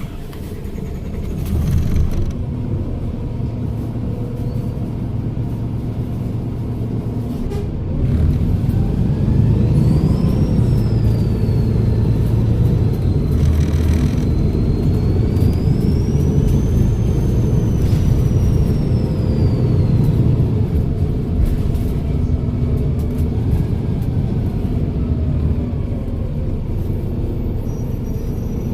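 Volvo B7RLE bus's turbodiesel engine pulling with a low steady rumble, and a high turbocharger whistle that rises, dips, rises again and then falls away. A short knock at the very start.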